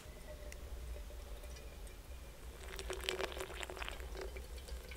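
Hot water poured in a thin stream from a gooseneck kettle into a pour-over coffee dripper: a faint trickle that grows louder about two and a half seconds in.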